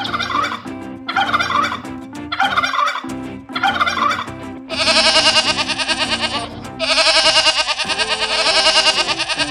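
Animal calls over background music: four short calls about a second apart, then two long, rapidly pulsing rattling calls of about two seconds each.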